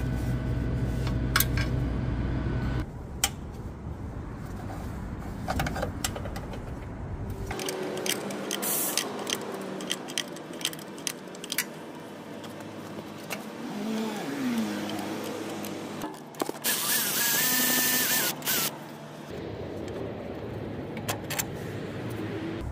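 Scattered metallic clicks and clinks of hand tools worked on a small engine's carburetor, over a steady low hum for the first few seconds. A loud hiss runs for about two seconds a little past the middle.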